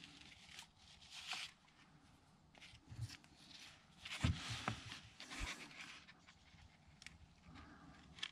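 Faint handling noises of a tractor's mechanical fuel lift pump being taken apart by hand: scattered light clicks and scrapes of metal parts, with a louder rustling stretch and a couple of soft knocks about four to five seconds in.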